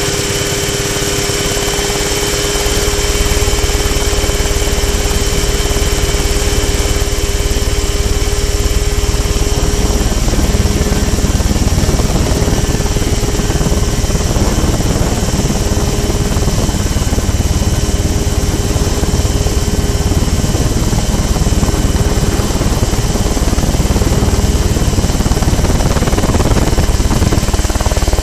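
Mosquito ultralight helicopter's two-stroke engine running steadily under a heavy low rumble, growing louder about three seconds in; its steady tone changes about ten seconds in.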